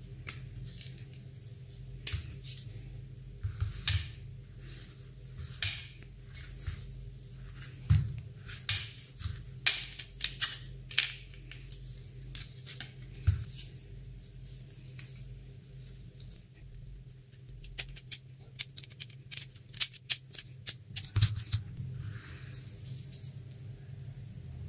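Hands handling a foldable laptop stand, with scattered sharp clicks and taps in three bunches over a steady low hum.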